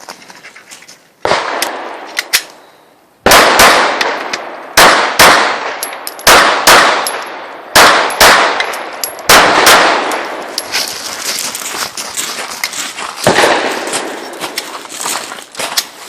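Pistol shots fired in quick strings of two and three with short pauses between, starting about three seconds in, some followed by metallic clangs typical of bullets striking steel targets.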